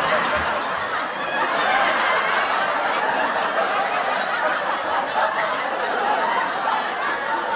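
Laugh-track sound effect: many people laughing together at a steady level.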